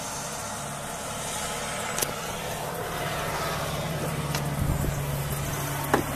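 Ford F-250 Super Duty pickup engine idling steadily with a low hum, heard first from inside the cab. The idle grows louder in the last couple of seconds, and there is a sharp click about two seconds in and another just before the end.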